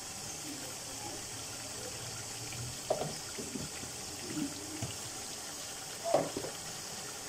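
Chicken pieces sizzling and simmering in oil in a large aluminium pot, a steady hiss. A few brief knocks are heard, the loudest about three and six seconds in.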